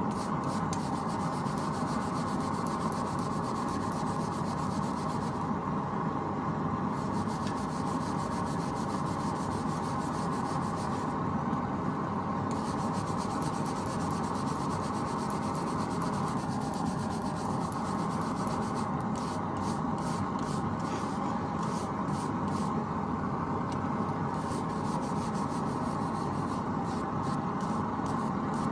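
Brass wire brush scrubbing the lower half of a forged steel bottle opener, a steady, continuous rubbing and scratching of brass bristles on steel that gives the metal a gold tone.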